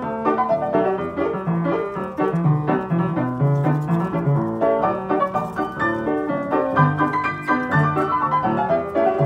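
Piano music, a quick, busy run of notes over repeating bass notes.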